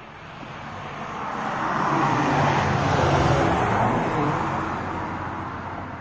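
A car or truck driving past on the road: its engine and tyre noise swells to a peak about three seconds in, then fades as it drives away.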